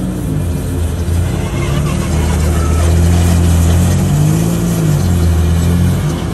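Engine of a small car converted into a ride-on lawnmower, running as it drives across grass, its pitch rising and falling a couple of times with the throttle.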